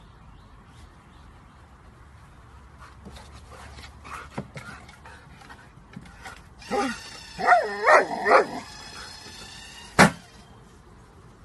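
A dog whines and yips in several loud pitched calls while an automatic ball launcher's motor hums with a steady high whine. The launcher then fires the ball with a single sharp snap.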